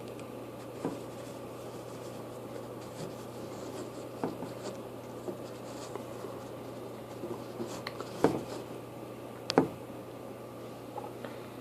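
Light scratching and rubbing handling noises with scattered sharp clicks, two louder knocks about eight and nine and a half seconds in, over a steady electrical hum.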